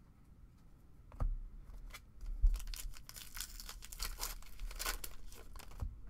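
A single sharp tap about a second in, then a foil trading-card pack being torn open by hand, its wrapper tearing and crinkling for about three seconds.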